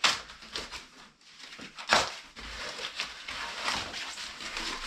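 Plastic wrapping rustling and crinkling, with a few sharp clicks and knocks as light plastic parts are handled on a table, the loudest right at the start and about two seconds in.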